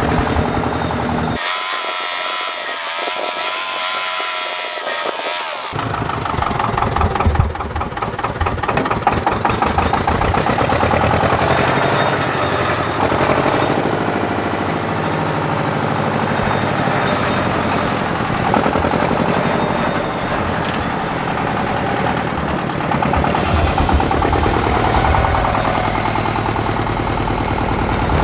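An engine running steadily with a low, rapid firing rhythm. For about four seconds near the start, a different, higher sound without the low rumble takes its place.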